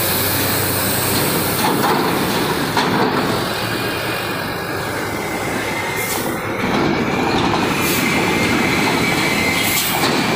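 Heavy trucks rolling off a car ferry's ramp across a steel-grated dock bridge: a loud, continuous clatter and rumble of tyres on the steel with diesel engines underneath, and a few sharp clanks as the wheels cross the plates.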